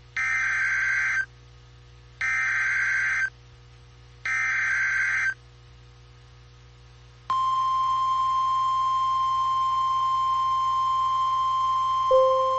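Emergency alert data and alarm tones from a NOAA Weather Radio broadcast. First come three screeching bursts of SAME digital header data, each about a second long and about a second apart. About seven seconds in, the steady single-pitch 1050 Hz warning alarm tone starts and holds, with a short, louder, lower blip near the end.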